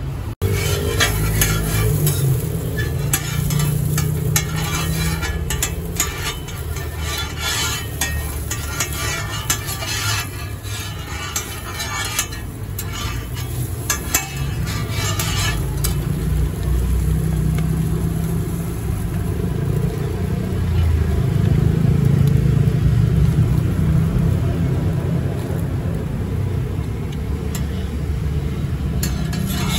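Street-stall cooking: utensils clicking and scraping on a griddle with some sizzling, over a steady low rumble of traffic. The clicking is busiest in the first half.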